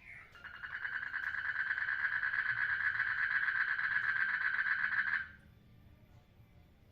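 A frog calling in a breeding pond: a brief note, then one long, fast-pulsing trill lasting about five seconds that stops abruptly.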